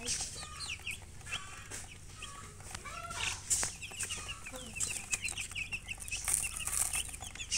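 A crowd of chicks peeping in many short, high chirps, with a hen clucking among them.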